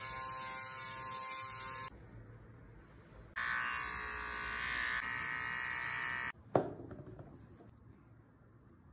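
Handheld electric mist sprayer whirring steadily for about two seconds. After a short pause, an electric pet nail grinder buzzes steadily for about three seconds as it files a dog's claws. One sharp click follows.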